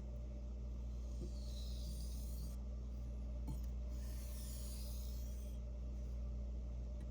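Santoku blade being rubbed on a wet natural whetstone with slurry: a gritty swishing that swells with each long stroke, about every two to three seconds, over a steady low hum.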